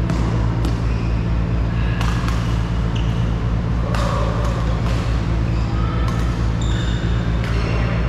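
Badminton play in a hall: sharp cracks of rackets striking shuttlecocks at irregular intervals of about a second, with short squeaks of shoes on the court, over a steady low hum.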